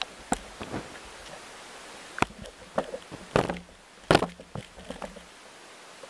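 Water splashing and sloshing around an action camera in a waterproof housing as it bobs at the lake surface. A few sharp splashes, the loudest about three and four seconds in, come over a steady hiss.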